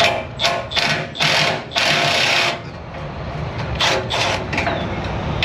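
Milwaukee cordless ratchet whirring in short on-and-off bursts as it runs bolts out: a few quick blips, then two longer runs a second or two in, then three more quick blips near the end.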